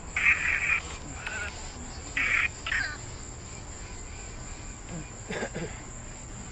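Night insects calling in short buzzy bursts, about four of them in the first three seconds. There is a faint tap about five seconds in.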